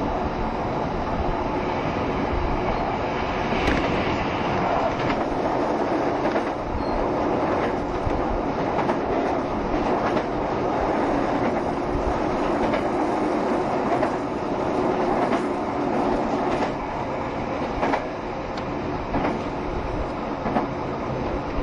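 JR Shikoku 7200 series electric multiple unit running at speed, heard from inside the car: a steady rolling rumble with the wheels clicking over rail joints every few seconds.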